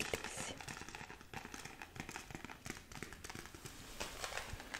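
Close-miked handling of a necklace on its cardboard jewellery card: irregular small clicks and taps from fingers and long nails on the card and chain.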